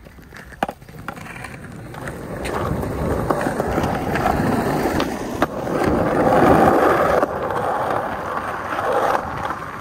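Skateboard wheels rolling fast down a concrete path, the rolling noise growing steadily louder through the first few seconds. A few sharp clicks come through as the wheels cross joints in the concrete.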